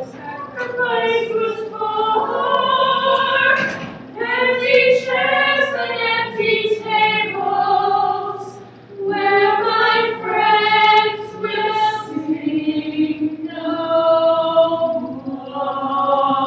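Several women singing together without accompaniment, in a flowing melody with long held notes.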